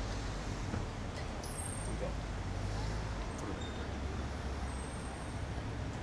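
Steady outdoor city background noise, a low rumble of distant traffic.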